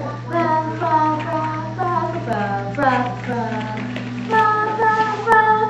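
A child singing a wordless tune of held and sliding notes, over a steady low hum.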